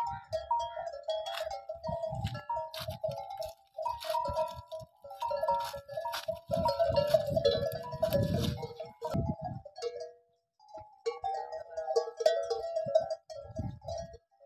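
Background music: a melody of held notes that step up and down, which drops out for about a second near the ten-second mark, over irregular low rumbles.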